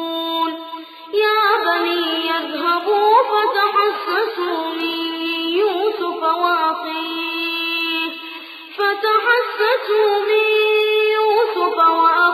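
Solo male reciter chanting Quranic verses in melodic tajweed style, unaccompanied. He holds long, high notes with ornamented turns, breaking off briefly about a second in and again about eight seconds in.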